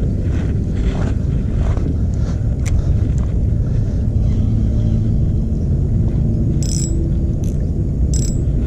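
Wind buffeting the action camera's microphone, a steady low rumble, with a few short clicks and crackles from handling the spinning rod and reel.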